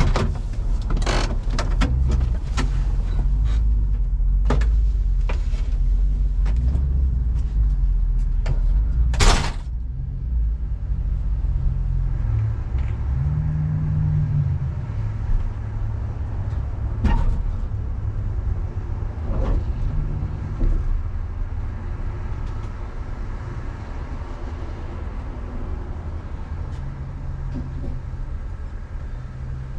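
A car running with a deep low rumble. Sharp knocks and clatters come through it in the first ten seconds, with one loud bang about nine seconds in. It then settles to a steadier, quieter rumble with an occasional knock.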